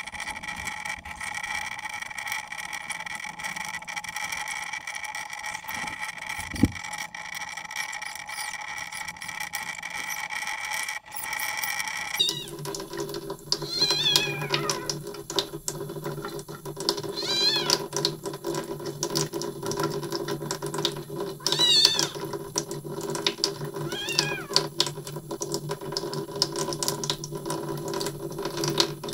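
Very young kitten meowing while it defecates: from about halfway through, a series of high, wavering cries, about five of them. The cries come over a steady hum.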